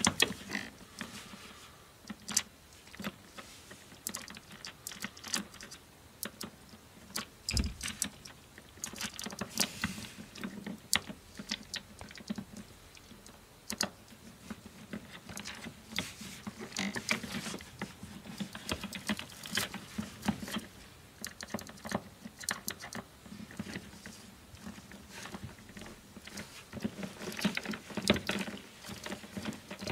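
Small irregular clicks, taps and scrapes of a screwdriver and fingers working wires into the screw terminals of a plastic junction-box terminal strip, as the wires are secured.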